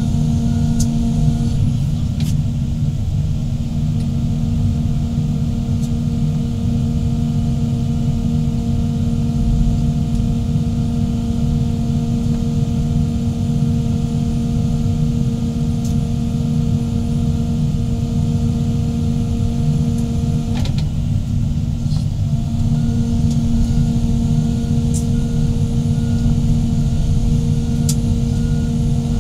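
Heavy excavator diesel engines running steadily under load, a deep rumble with a steady droning hum on top.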